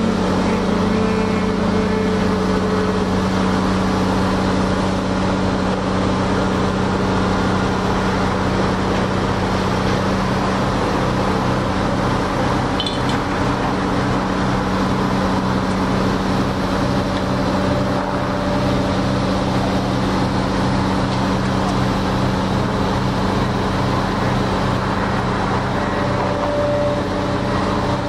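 A heavy diesel engine running at a steady speed, a constant low drone with a regular throb beneath it, typical of construction machinery such as an excavator working at the site.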